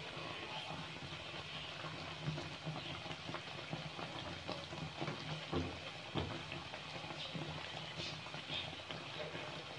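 Batter-coated bread slices deep-frying in hot ghee in a kadhai: a steady sizzle with small crackles throughout. A couple of soft knocks about halfway through as a silicone spatula moves the slices in the pan.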